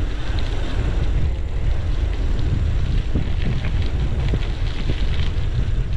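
Wind buffeting the microphone of a cyclist riding along a road: a steady low rumble with a hiss of air.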